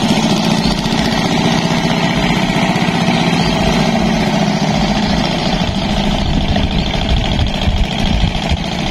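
A small engine running steadily at an even speed, a constant low hum.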